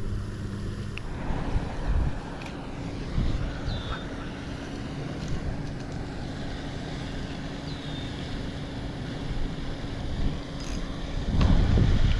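Wind rumbling on the microphone over low outdoor background noise, swelling louder near the end, with a few short high chirps.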